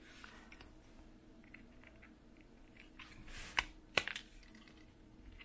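Flush cutters snipping through the plastic of a GoPro Hero 6 housing to free the glued rear LCD: two sharp snaps about three and a half and four seconds in, with faint handling clicks around them.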